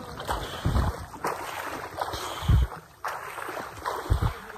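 River water splashing and sloshing right at the microphone, held at the water's surface, as swimmers move through it, with three heavy low thumps nearly two seconds apart.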